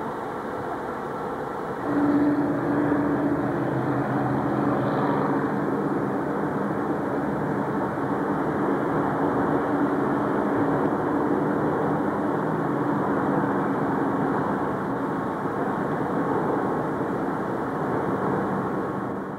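Chicago & North Western GP15 diesel locomotive idling: a steady engine drone with a humming tone. It grows louder about two seconds in, and the tone fades near the end.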